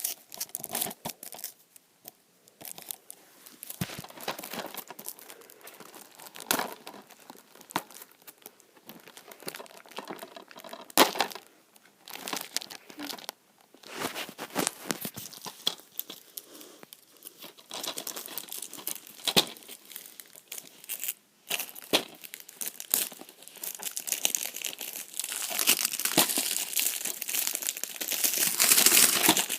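Plastic wrapping on a DVD case being torn and crumpled by hand: irregular crinkles and sharp snaps, getting denser and louder near the end.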